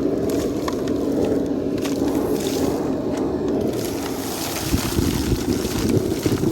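Vent-cleaning vacuum running steadily, with scattered light ticks and a few low thumps from about five seconds in.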